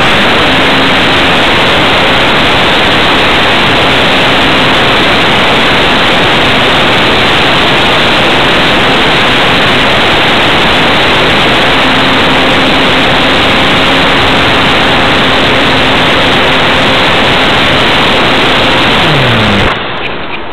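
Loud, steady rush of wind and propeller wash over a small camera on a Parkzone Radian electric glider under power, with the motor's faint steady hum underneath. Near the end the hum falls in pitch and the rush cuts off suddenly as the motor is shut down.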